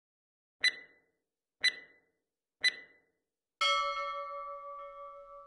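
Countdown chime: three short struck tones one second apart, then a longer bell tone that rings out and slowly fades. It is the start signal before the exercise begins.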